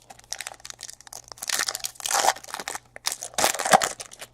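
Crinkling and crunching of trading-card pack wrappers and cards being handled, in two main bursts of rustling.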